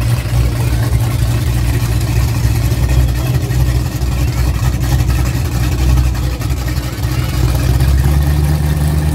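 Big-block 440 V8 of a Dodge drag truck idling before a run with a steady low rumble, its pitch lifting slightly about eight seconds in.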